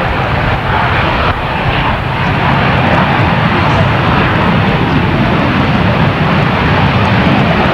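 NASA T-38A Talon's twin General Electric J85 turbojets at takeoff power as the jet rolls down the runway: a steady, loud jet noise.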